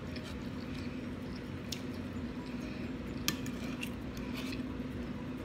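A fork clicking and scraping against a metal plate as it digs into rice, with hands pulling apart saucy stewed chicken; a few sharp clinks, the loudest about three seconds in, over a steady low hum.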